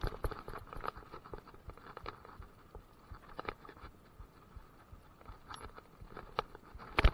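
Mountain bike rattling and clattering over a rough dirt trail: a run of irregular knocks and clicks from the bike and the gear on its handlebars, with one sharp, louder knock near the end.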